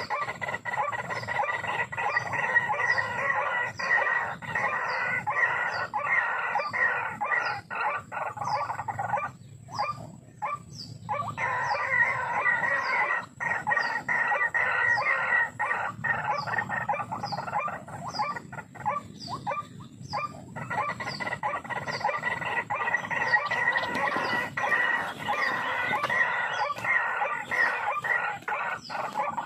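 White-breasted waterhen calling, a loud, continuous run of repeated croaking calls with a couple of short breaks. A high short chirp repeats evenly over the calls, about twice a second.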